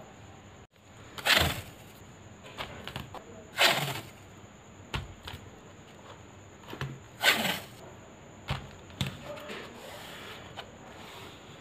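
Three short scraping strokes, each about half a second long, with light taps and clicks between them.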